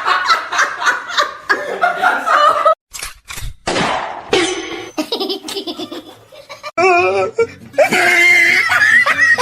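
People laughing hard, in quick pulsing bursts, with the sound cutting off abruptly twice as one clip gives way to the next.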